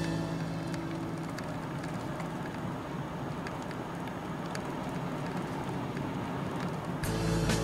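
Steady road and engine noise inside a moving car's cabin. Background music fades out about a second in and comes back near the end.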